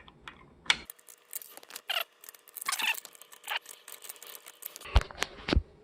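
Small plastic parts of a refrigerator door's mullion assembly being handled and pushed into place: scattered clicks and scrapes, with two sharper knocks near the end.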